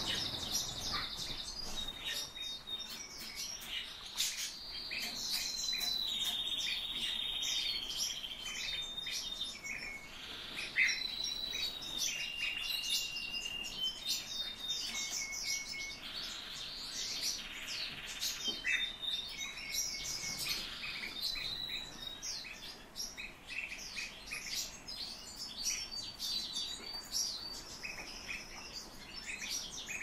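Songbirds chirping and singing: a steady run of quick high chirps mixed with short trills and held whistled notes.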